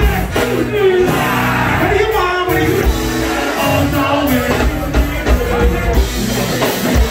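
Live band playing through a club sound system: a vocalist over a steady drum beat with keyboards.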